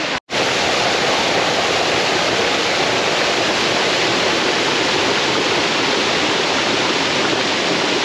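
Waterfall pouring over a rock ledge: a steady, loud rush of falling water, cut off for a split second just after the start.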